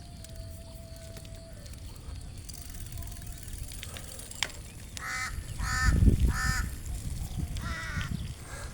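A crow cawing: four harsh caws in the second half, the first three in quick succession and the last after a short pause, with a low rumble under the second caw.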